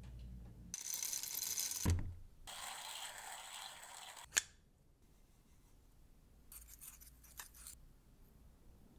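Coffee beans going into a Flair Royal hand grinder and being ground: a rattling, gritty noise in two stretches, each ending in a sharp knock. Later come a few brief light scratches as a needle distribution tool stirs the grounds in the portafilter.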